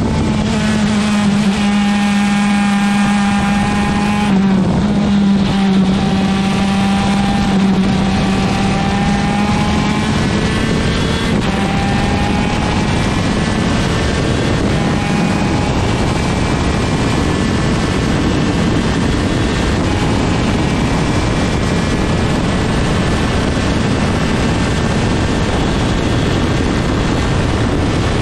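125cc two-stroke superkart engine running at high revs. Its note holds fairly steady with a few small shifts in pitch for about the first fifteen seconds, then gives way to a rough rushing noise.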